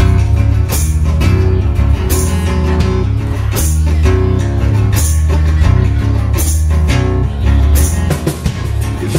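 Live band playing a rock song on acoustic guitar, electric guitar, bass and drum kit, with a heavy bass line and a loud drum hit about every second and a half.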